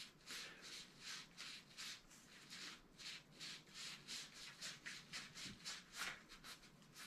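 A damp, soapy wash rag rubbed and twisted around a fishing rod's Winn grip, faint repeated scrubbing strokes about three a second, lathering dish soap into the grip to lift out the dark grime.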